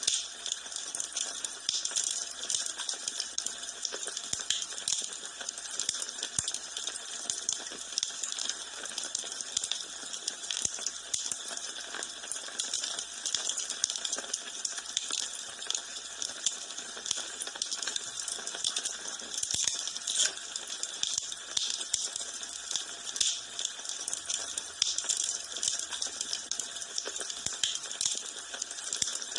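Wood fire in a fireplace burning with a steady dense crackle and hiss, thick with small pops and snaps.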